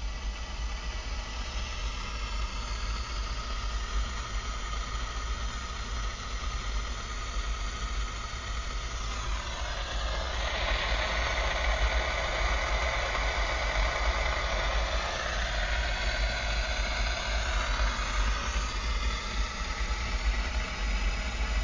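Car radio turned up on the AM 1240 frequency, playing only static hiss because the AM station is off the air, over a car engine idling low. The hiss swells louder and brighter from about nine seconds in, then settles back near the end.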